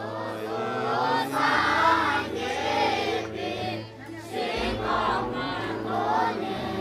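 Many young voices chanting prayers together in a sung, melodic style, in phrases a second or two long with short breaks between, over a low steady drone that shifts pitch about two-thirds of the way through.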